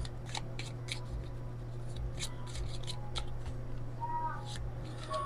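A deck of oracle cards being shuffled by hand: a scatter of soft card flicks and slides, over a steady low hum.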